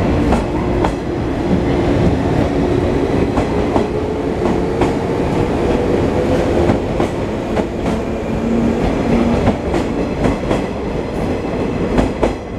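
A JR West 113 series electric train departing and running past: its wheels clack repeatedly over the rail joints over a heavy rumble, with a hum that rises slowly in pitch as it gathers speed. The sound thins near the end as the last car clears.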